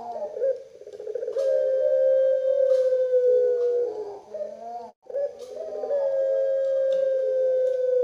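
Collared dove cooing: two long, drawn-out coos, each held for about two and a half seconds and falling slightly in pitch, each led in by a short wavering note.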